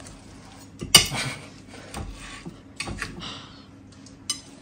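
Knife and fork clinking and scraping on a ceramic plate while cutting a pancake, with a sharp clink about a second in and a few lighter ones after.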